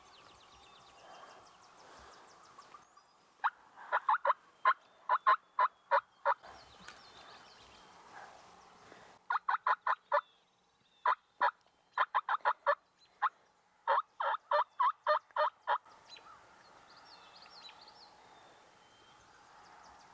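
Turkey yelping: three runs of short, sharp, evenly spaced notes, about three to four a second, each run several notes long.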